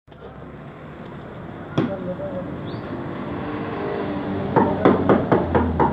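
Street traffic: the steady hum of passing cars and vans, with a sharp knock about two seconds in and a run of quick knocks near the end.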